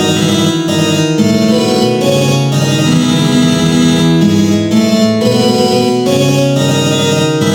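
Synthesized MIDI music in a keyboard-like voice, many notes sounding at once in dense chords that change about every half second at a steady, loud level.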